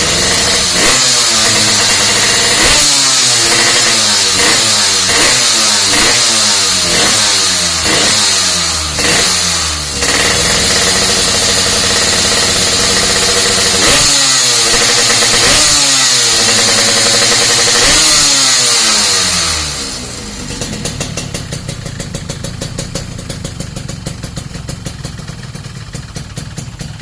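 Yamaha RX-King two-stroke single running through an Axanthic galvanised-steel 'standard racing' aftermarket exhaust: repeated quick throttle blips about once a second, a few seconds held at high revs, then more blips. About twenty seconds in the revving stops and the engine settles to a steady, quieter idle.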